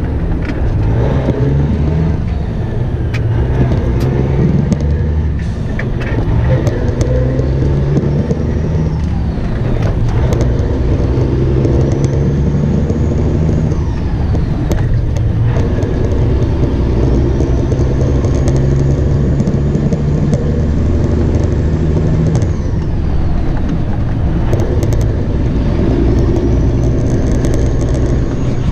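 Semi truck's diesel engine running under load, heard from the cab, its pitch climbing and dropping several times as it works through the gears, with a faint high whine rising and falling over it.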